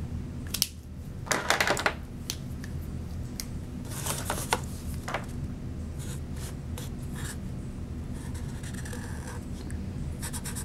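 Black felt-tip marker drawing on a paper cup in short scratchy strokes, after a brief louder rustle of the cup and marker being handled about a second in. A steady low hum runs underneath.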